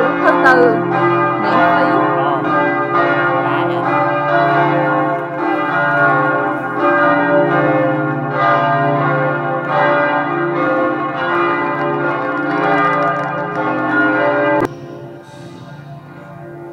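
Church bells ringing, several bells struck in quick succession so that their tones overlap and hang together. The ringing cuts off abruptly near the end, leaving a much quieter sound.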